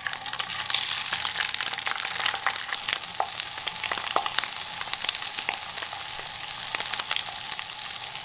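Lake trout fillets searing skin-side down in hot butter over high heat: a steady sizzle with many small pops and crackles.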